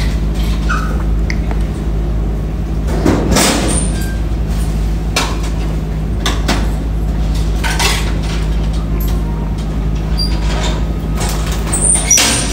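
A steady low mechanical hum, with a few scattered knocks and clicks, the loudest a little after three seconds in and another near the end.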